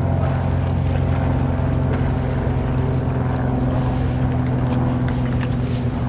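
Steady low engine drone, a motor running at an even speed with no rise or fall, with a few light clicks and knocks near the end.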